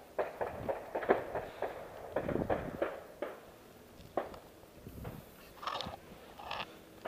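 Footsteps and scuffs of a hiker climbing steep stairs of wooden railway ties: a string of irregular knocks, a few brighter bursts near the end.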